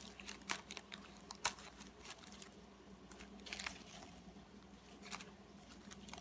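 Clear plastic bag strips crinkling as they are handled and slotted into the notches of a kumihimo disc loom, with a few short crisp crackles spread through.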